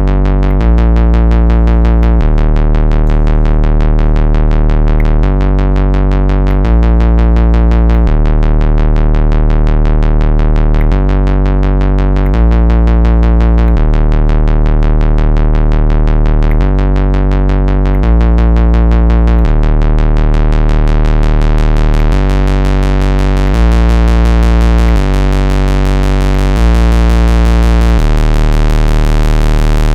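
Behringer Crave monophonic analog synthesizer playing a fast step-sequenced riff, its pitch pattern shifting about every second and a half. The tone grows brighter in the last third.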